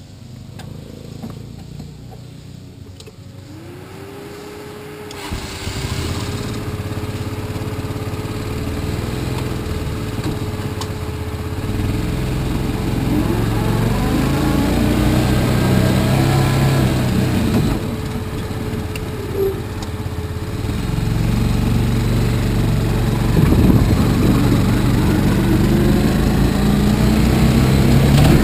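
Open dune buggy's engine starting about five seconds in, then running and revving with rising and falling pitch as the buggy pulls away and drives, growing louder near the end.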